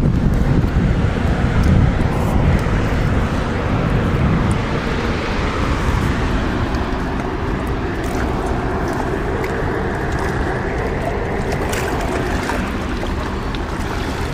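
Steady rush of churning tailwater below a dam. Wind buffets the microphone during the first few seconds.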